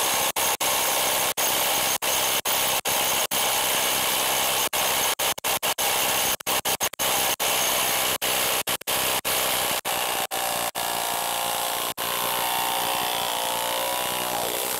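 HILTI low-range half-inch cordless impact wrench hammering on a 1.5-inch nut torqued to 70 foot-pounds, working it loose. It runs continuously with many very short breaks, and a steadier whine comes in during the last few seconds.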